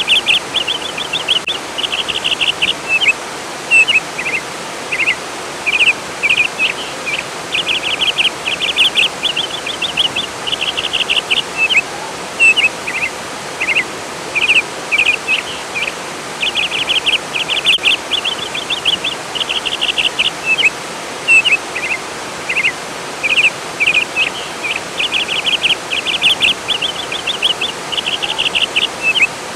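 A songbird singing over and over in short phrases of rapid trills and chirps, above the steady rush of flowing water.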